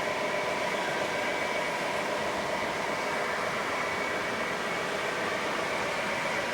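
O gauge toy trains running on the layout: a steady running noise of motors and wheels on the track.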